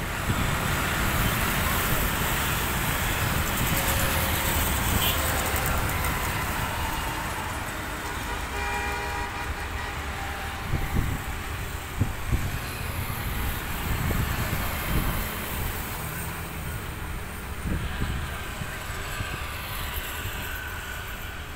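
Busy road traffic: a steady rumble of passing cars, buses and motorbikes, with a vehicle horn sounding briefly about nine seconds in and two short sharp sounds about eleven and twelve seconds in.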